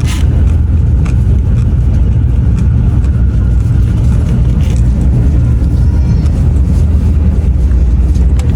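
Steady low rumble of a Shinkansen bullet train running at speed, heard from inside the passenger car, with a few faint light clicks.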